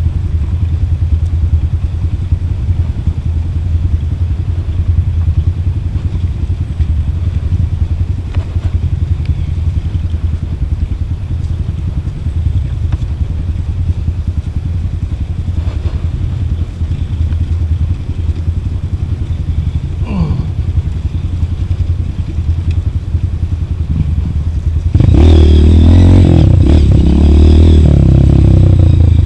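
Trail motorcycle engine running at low revs on a rough descent, with clattering and scraping over the ground. About 25 s in the sound jumps much louder and stays loud.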